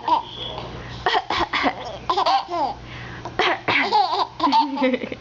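A baby laughing in bouts, with a woman's short, repeated coughs mixed in.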